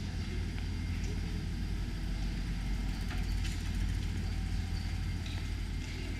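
Steady low rumble of street ambience, with a few faint ticks and clicks over it.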